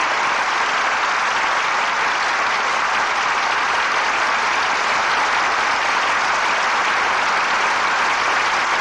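Studio audience applauding steadily, heard on a 1940s radio broadcast recording.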